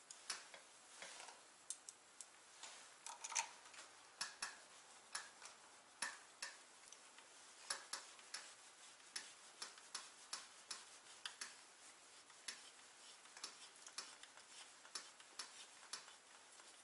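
Faint, irregular metallic clicks and ticks, roughly one or two a second, as a small hex driver turns and seats 3 mm bolts in a metal damper bracket.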